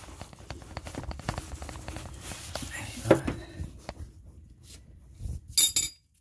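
Hand ratchet clicking rapidly as a brake caliper bolt is backed out, with a sharp knock about three seconds in and a ringing metal clink near the end.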